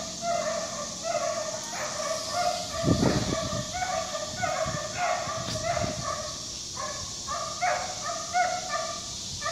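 Dogs barking over and over, about two barks a second, with a steady hiss underneath. A low rumble comes about three seconds in.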